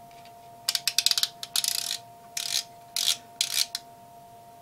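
Five short bursts of rapid plastic clicking and rattling as the Elenco M-1006K multimeter's plastic case is handled and worked in the hands.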